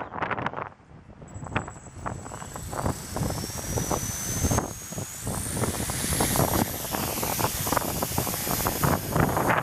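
Small electric RC helicopter's motor and rotor whine, climbing in pitch about three to six seconds in and then holding, over gusts of wind buffeting the microphone.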